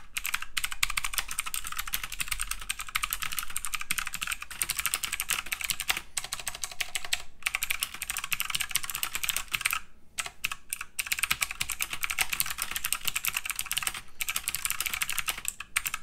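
Fast typing on an Aukey KM-G3 mechanical keyboard with clicky Outemu Blue switches, about as loud as switches come: a dense stream of sharp clicks with brief pauses around six, ten and fourteen seconds in.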